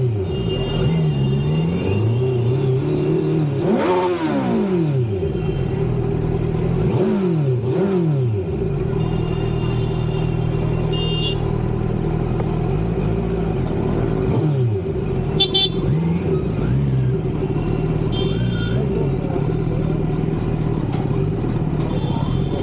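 Kawasaki Z900's inline-four engine running under way, its revs rising and falling in short blips a few times. Vehicle horns honk briefly several times over it.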